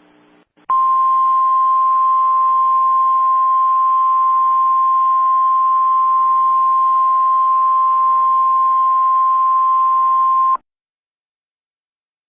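Emergency alert attention tone: a single steady high beep held for about ten seconds over a faint hiss. It starts just under a second in and cuts off suddenly, which is the cue that the spoken alert message is about to follow.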